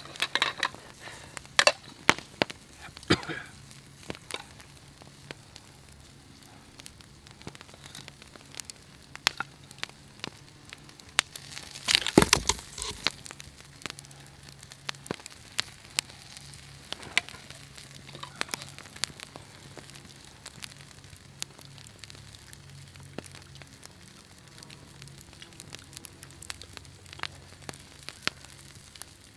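Wood campfire crackling with scattered sharp pops, and meat sizzling on a wire grill grate set over the fire. A louder burst of noise lasting about a second comes near the middle.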